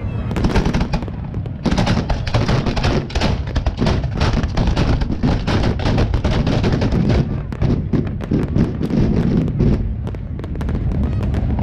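Professional fireworks display firing: a rapid, dense string of sharp bangs and cracks, most crowded from about two seconds in and thinning out toward the end.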